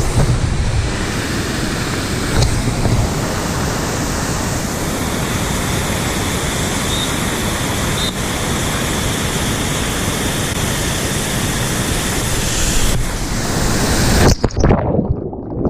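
Steady roar of rushing water at a waterfall, a loud even hiss; it cuts off abruptly near the end.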